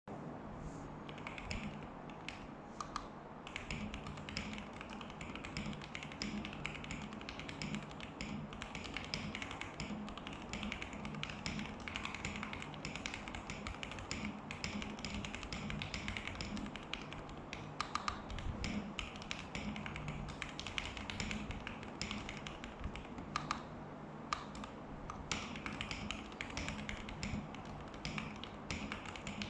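Continuous typing on a custom-built CIY Tester68 mechanical keyboard with factory-lubed Gateron Milky Yellow linear switches, Kon Momo clone keycaps, and PE-foam and tape-modded case: a steady stream of keystrokes, several a second, with a few louder strikes here and there.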